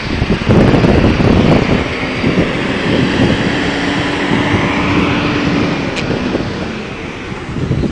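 Wind buffeting the microphone, with a steady engine hum underneath for a few seconds in the middle.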